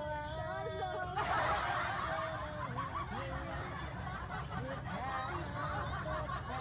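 Singing on held notes, then giggling and laughter from about a second in, over the low steady rumble of a car interior.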